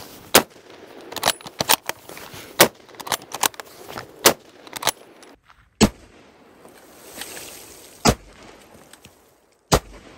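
M1903 Springfield bolt-action rifle in .30-06 fired slowly, about six shots one to two seconds apart, with fainter clicks between the shots.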